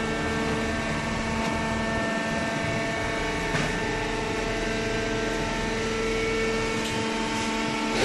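Hydraulic cardboard baler running: a steady machine hum with a held whine that fades in and out, and a single short click about three and a half seconds in.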